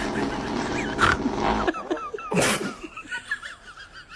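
A long, low, buzzing fart noise that stops about a second and a half in, followed about a second later by a short, sharp sneeze.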